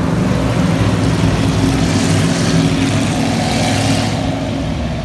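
A pack of stock cars running past on the track, their engines blending into one loud drone. The sound swells about two seconds in as the cars go by and eases near the end.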